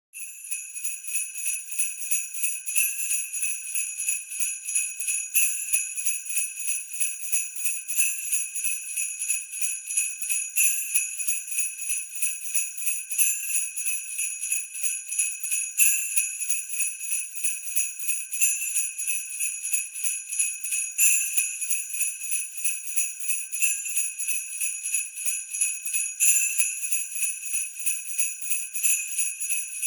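Sleigh bells shaken in a quick, even rhythm, about three jingles a second, with a stronger accent every two and a half seconds or so.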